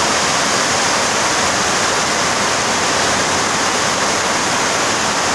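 Heavy rain pouring down and floodwater rushing along a street, a steady, loud rushing noise.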